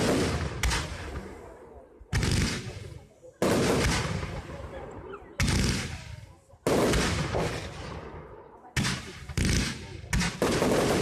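Fireworks display: aerial shells bursting in a series of about nine loud bangs, one every second or two, each dying away over a second or so.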